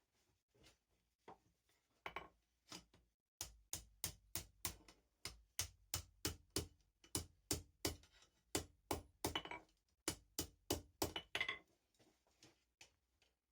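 Blacksmith's hand hammer striking steel on an anvil, forging the stock: a few light taps, then a long steady run of ringing blows at about three a second that tapers off to a few lighter taps near the end.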